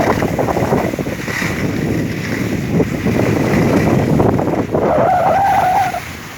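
Skis scraping and sliding over snow on a downhill run, with wind buffeting the microphone. Near the end, a held, slightly wavering high tone sounds for about a second.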